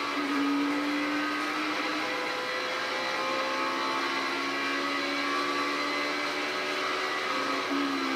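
NASCAR Xfinity Series stock cars' V8 engines running at race speed, heard on the TV broadcast, their pitched engine notes gliding slightly up and down.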